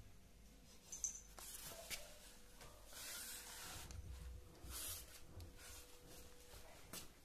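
Faint rustling and rubbing, coming and going in soft patches, with a sharp click about a second in and a faint steady tone underneath.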